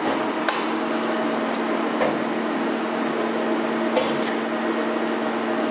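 Spinner TC 46 MC CNC lathe running during a cut, a steady hum under an even hiss of coolant spray inside the enclosure, with a few sharp ticks.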